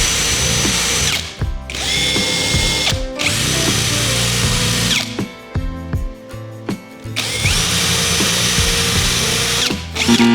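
A power tool's electric motor switched on and off in several runs of one to three seconds, spinning up to a steady whine each time. In the longer pause mid-way there are clicks and knocks of handling.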